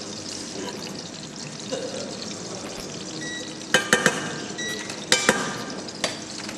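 Potato pancakes sizzling in shallow oil in a frying pan, a steady hiss. About four seconds in, a run of sharp metallic clinks rings out, a few more near the end, as a utensil knocks against the pan.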